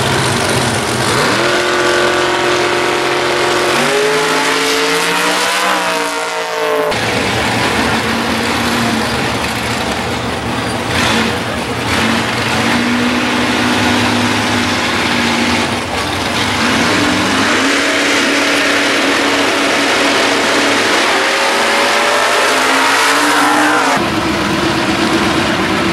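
Drag-racing hot rod and muscle car engines at the starting line, revving and launching down the strip one after another, the pitch climbing as each car accelerates away. There are two launches, one a few seconds in and another from about 17 seconds, with engines running steadily between them.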